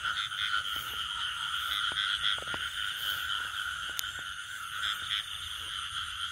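Steady, dense chorus of frogs calling in a field at night, with one sharp click about four seconds in.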